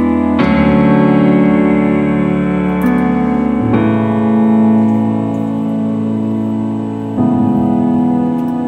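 Background music of slow, sustained keyboard chords, changing about every three and a half seconds.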